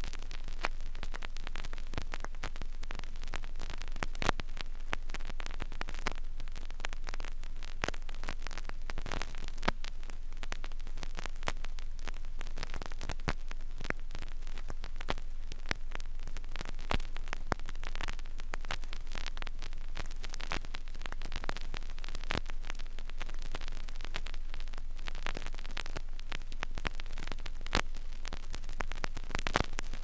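Vinyl LP surface noise in a blank stretch of groove: a steady hiss and low hum, with irregular crackles and pops scattered throughout.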